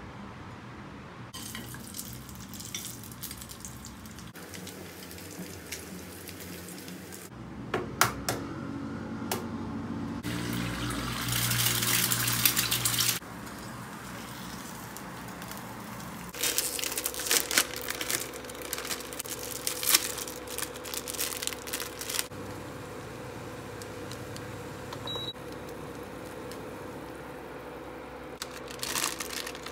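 An egg frying in hot oil in a small non-stick pan on a gas hob. A loud sizzling rush comes about ten seconds in, followed by sizzling with irregular crackling and popping.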